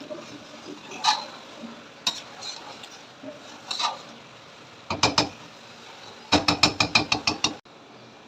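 Metal utensil knocking and clinking against a cooking pot. A few single knocks come first, then two quick runs of taps; the second run is about ten taps in just over a second. The sound then stops abruptly.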